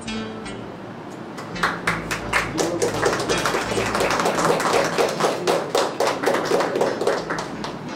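A small group clapping by hand: an uneven run of claps that starts about a second and a half in and keeps going almost to the end.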